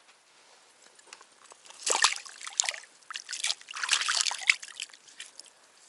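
Water sloshing and splashing in two bursts, the first about two seconds in and a longer one from about three seconds, with smaller splashes around them.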